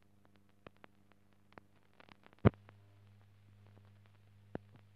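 Scattered clicks and pops over a steady low hum, with one loud click about halfway through: the background noise of a silent newsreel film transfer that has no recorded soundtrack.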